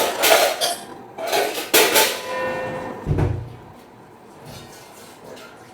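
Ginger and spices being pounded in a stone mortar: a run of hard strikes over the first two seconds, a short ringing after them, then a single dull thud about three seconds in.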